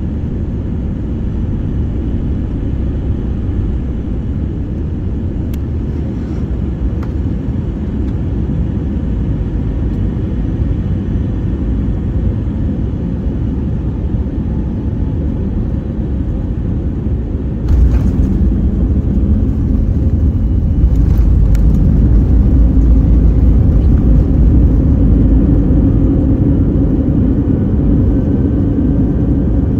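Airbus A321 cabin noise on landing: a steady rumble of airflow and engines, then a sudden jolt of touchdown about 18 seconds in. After it comes the louder rumble of the wheels on the runway, and a hum from the engines spooling up for reverse thrust that builds a few seconds later and eases near the end.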